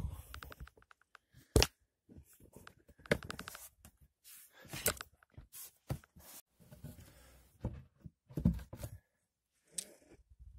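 Scattered sharp clicks and knocks with rustling and scraping between them, including a quick run of rapid clicks a little after three seconds in: a person shuffling about in the dark while handling the camera.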